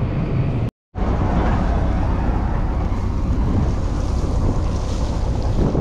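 A tractor engine running steadily, heard from the loader tractor's seat. It breaks off in a short silent cut, then gives way to wind rushing on the microphone over a low rumble of farm machinery.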